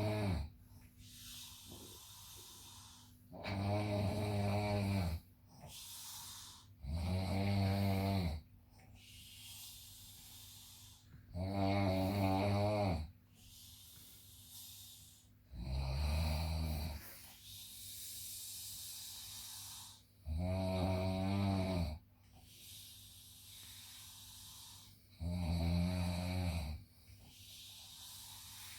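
A sleeping person snoring: a loud, buzzing snore on each in-breath, about every four to five seconds, with a quieter airy out-breath between snores.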